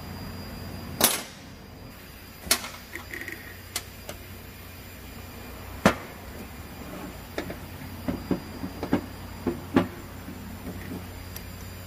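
Scattered sharp knocks and clinks of metal parts and hand tools being handled during disassembly of a rice transplanter's rotary case. A few loud single knocks come in the first half and a quicker run of lighter taps in the second half, over a low steady hum.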